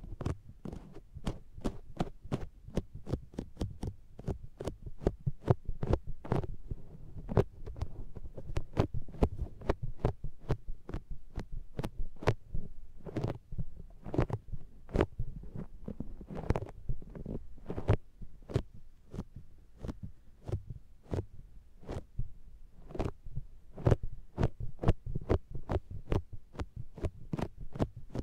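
Makeup sponge patted against the ears of a binaural microphone: a rapid run of soft, sticky pats with a slight suction as it lifts off, about three to four a second, heavy in the low end.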